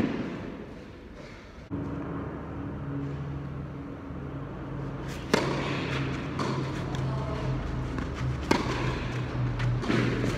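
Tennis balls struck by racquets in a rally on an indoor clay court: sharp pops a few seconds apart, one at the start and three more in the second half. Low background music with held bass notes comes in about two seconds in and runs underneath.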